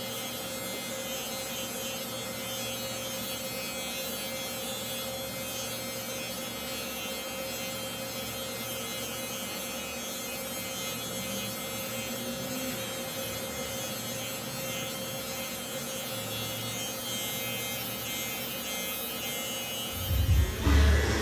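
Electric hair clippers running with a steady hum as they trim a child's hair.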